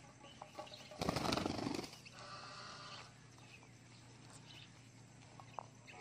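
A parrot's wings flapping in a short loud burst about a second in, followed by a parrot call lasting about a second.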